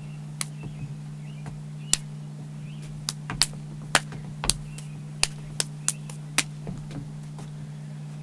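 A dozen or so sharp, irregular clicks and taps, most of them bunched in the middle seconds, over a steady low hum.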